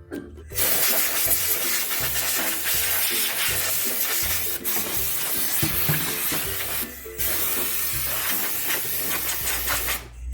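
WD-40 aerosol can spraying: a long hiss that starts about half a second in, breaks off briefly about seven seconds in, then runs on until it stops near the end. Background music plays underneath.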